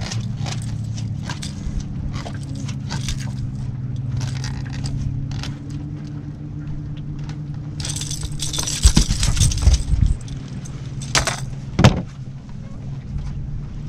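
A catfish being unhooked with pliers on an aluminium boat deck: light metallic clicks and rattles of pliers and crankbait hooks, then the fish flopping and scraping on the deck from about eight seconds in, with a couple of sharp knocks near the end as it is grabbed. A steady low motor hum runs underneath.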